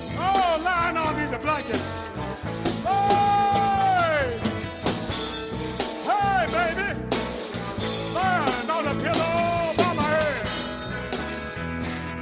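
Live blues band playing: a lead line of bent notes that rise and fall, with one long held note about three seconds in that sags at its end, over bass and drums.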